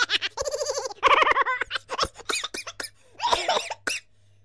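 A high-pitched voice giggling and laughing in quick bursts, with short squealing syllables in between.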